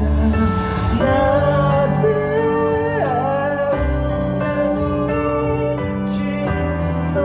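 Live music: a male singer singing into a microphone over an instrumental accompaniment with a strong, steady bass. About three seconds in, his voice slides down in pitch.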